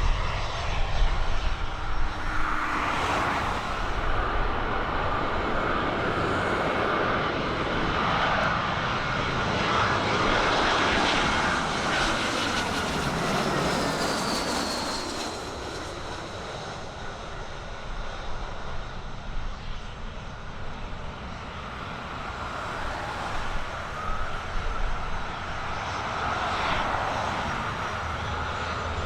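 Aircraft engine running with a steady high whine, loudest around the middle, where its pitch falls as it passes. Wind rumbles on the microphone underneath.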